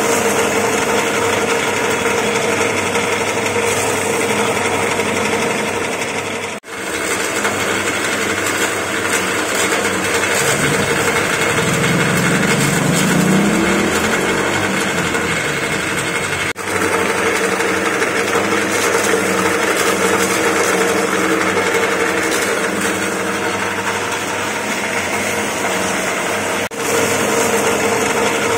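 Moringa-leaf pulverizing mill running steadily with a constant machine hum. A short rising whine comes midway, and the sound drops out for an instant three times.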